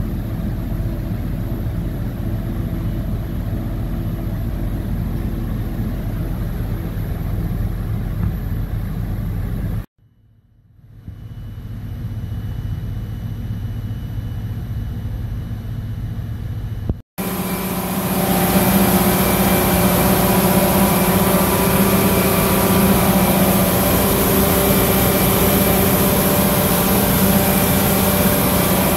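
Steady engine-room drone of an EMD 645 two-stroke diesel generator set running on line at light load. About ten seconds in the sound drops away abruptly and creeps back quieter, and past the middle it cuts back in louder with a strong steady low hum.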